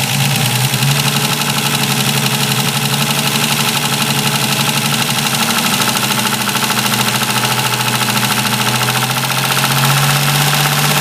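Ford Capri 2.8i's 2.8-litre Cologne V6 running steadily with a grinding noise. The engine speed rises slightly near the end.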